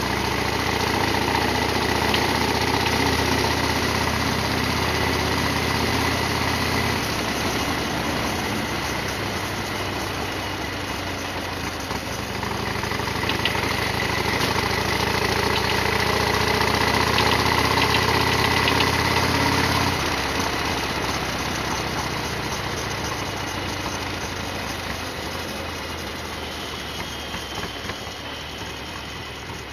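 Harley-Davidson Sportster XL1200R's air-cooled 1200 cc V-twin engine running on the move. Its note shifts a few times, builds for several seconds past the middle, then falls away as the throttle comes off.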